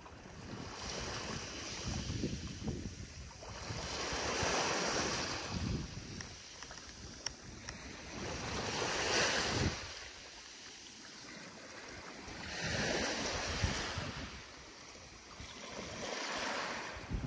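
Small waves washing ashore, the surf rising and falling in four or five slow surges, with wind rumbling on the microphone.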